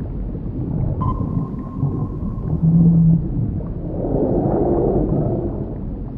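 Underwater ambience sound effect: a steady deep rumble with a few drawn-out moaning tones over it.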